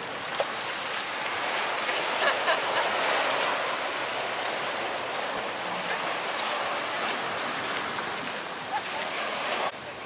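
Small waves washing onto a sandy beach: a steady rush of surf, which drops suddenly in level just before the end.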